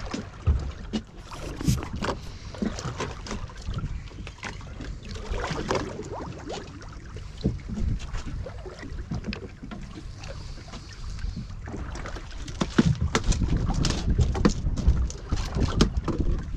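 Water lapping and slapping against a small motorboat's hull, with scattered knocks and rustles as a chum container is lowered over the side on a line. Wind buffets the microphone more heavily in the last few seconds.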